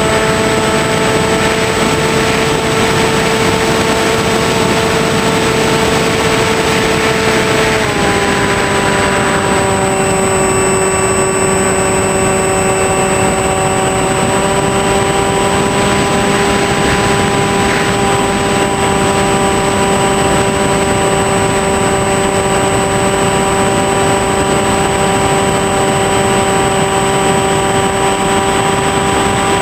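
Small electric RC airplane's motor and propeller whining steadily, picked up by the onboard camera, with wind rushing over the microphone. The whine steps down in pitch about eight seconds in and then holds steady.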